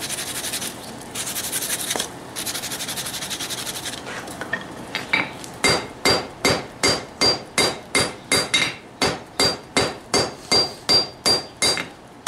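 Hand hammer striking a hot forge-welded steel billet on an anvil, about two blows a second with a ringing ping on each, as the bar is worked round. Before the blows start, about four seconds of a rasping scrub that breaks off twice and then stops.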